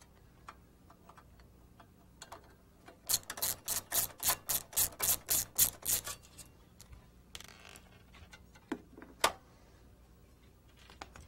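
A screwdriver turning out a screw from the LaserWriter Pro's sheet-metal chassis, making a run of about a dozen even clicks, roughly four a second. Later come two metal clacks, the second louder, as the lateral brace comes off.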